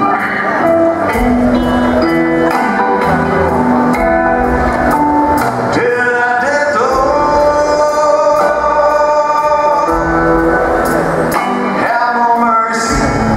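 Live rock band playing a slow blues: a male lead vocal over electric guitar, bass guitar and drums. About six seconds in, the voice slides up into a long held note.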